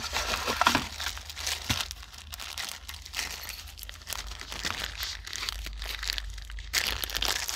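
Plastic packaging crinkling and rustling as it is handled and opened, a continuous crackly rustle that eases briefly near the end and then picks up again.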